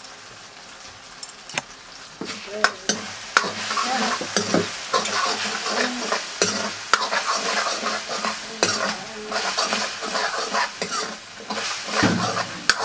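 Mushrooms sizzling as they fry in a metal wok, stirred and scraped with a metal ladle, with sharp clinks of the ladle against the pan. It is fairly quiet for about the first two seconds, then the stirring and sizzling come in.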